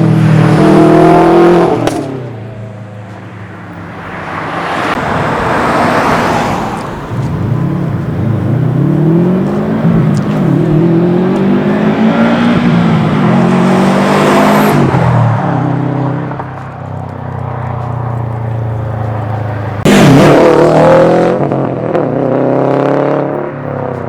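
Subaru STI's turbocharged flat-four engine through a straight-pipe, non-resonated ETS Extreme exhaust, accelerating past with its pitch rising and falling several times as it revs and shifts. It is loudest at the start and again about 20 seconds in.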